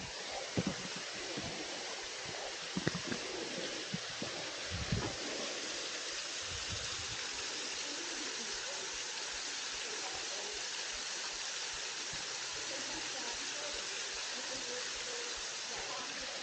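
Steady rushing of a waterfall, with several dull knocks in the first five seconds, such as footsteps or handling of the camera.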